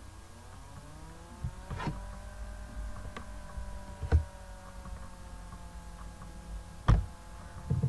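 A steady motor hum whose pitch rises a little at first and then sinks slowly, with three short sharp clicks about two, four and seven seconds in.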